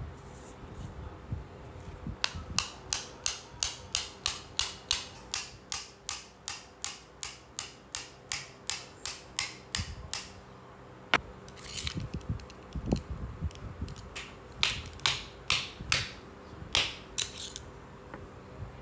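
Freehub ratchet of a 1992 White Industries Tracker rear cassette hub clicking as it is turned: an even run of sharp pawl clicks, about four a second, that fades out, then a few slower, irregular clicks.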